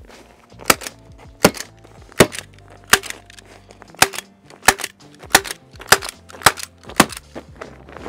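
Hand stapler firing staples through the foil-faced fiberglass duct insulation wrap to fasten its overlapping tab: about ten sharp snaps at a steady pace of roughly one and a half a second, stopping shortly before the end.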